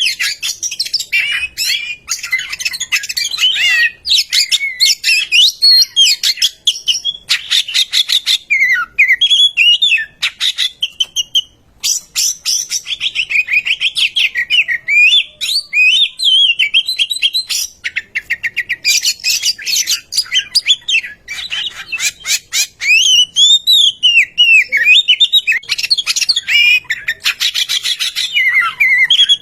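Oriental magpie-robin singing loudly and without let-up: a varied song of gliding whistled phrases mixed with very fast rattling runs of repeated notes, broken by a brief pause about eleven seconds in.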